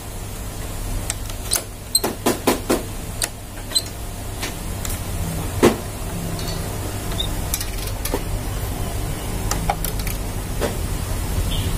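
Light metallic clicks and knocks from hand-handled parts and a tool inside an opened photocopier's gear and belt section: a quick run of four or five clicks about two seconds in and a single louder knock near the middle, over a steady low hum.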